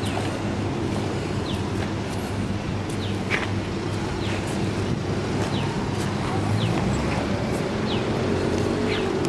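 Steady outdoor traffic hum and rumble from a city street, with short descending high chirps repeating about once a second over it.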